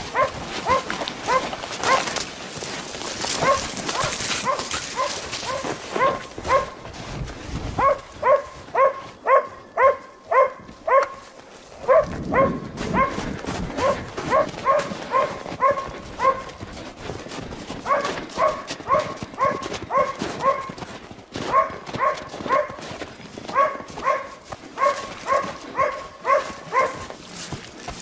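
A boar-hunting dog barking over and over, about two or three barks a second, with a few short pauses.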